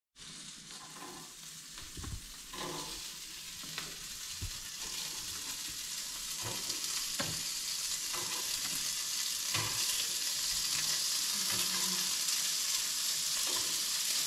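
Beef steak and slices of sausage searing in frying pans: a steady sizzle that grows louder, with occasional light knocks as pieces are laid in the pan.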